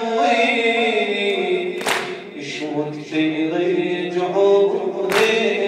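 A man chanting a Muharram mourning lament (noha) in a sustained, wavering voice, with other voices joining in. Twice, about three seconds apart, a sharp slap as the mourners strike their bare chests in unison (sineh-zani).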